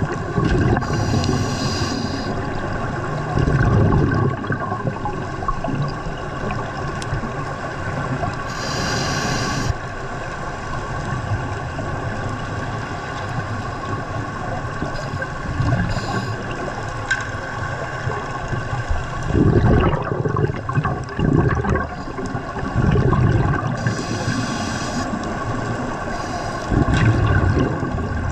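Scuba divers breathing through their regulators, heard underwater: a short hiss on an inhale every so often and low bursts of exhaled bubbles, over a steady underwater hum.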